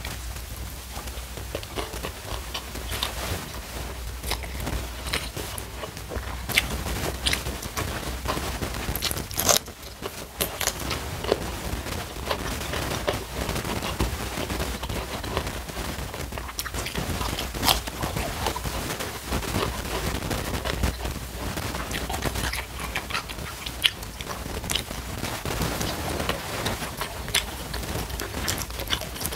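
Close-miked eating: chewing and crunching with frequent sharp crackles and mouth clicks, as mouthfuls of rice, raw cucumber and fried salted fish are eaten. A low steady hum lies underneath.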